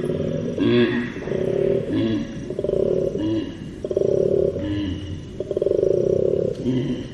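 Koala bellowing: long, rapidly pulsing rasping stretches alternate with short pitched grunts, over and over in a steady cycle.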